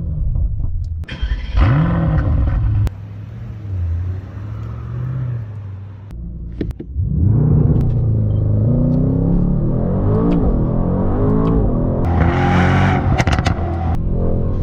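Brabus Rocket 900's 4.5-litre biturbo V8 revving and accelerating: two quick revs at the start, a lower steady stretch, then from about seven seconds a long pull whose pitch climbs, drops back at gear changes and climbs again, with a run of sharp crackles near the end.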